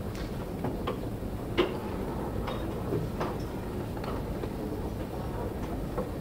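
Irregular light clicks and knocks over steady low room noise, the small handling sounds of a hall between speakers.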